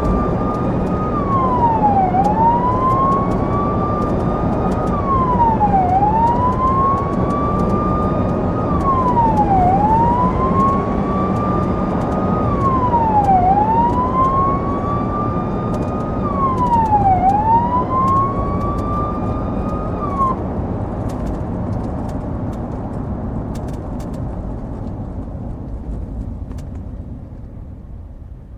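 Police car driving with its siren wailing: each cycle rises slowly and drops quickly, about every four seconds, over steady road and engine noise. The siren cuts off about twenty seconds in, and the vehicle noise then fades away.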